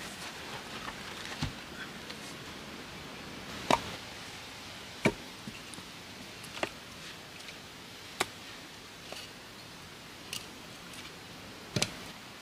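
Wood being chopped by hand: single sharp knocks, about seven in all, one every second or two, over a faint steady hiss.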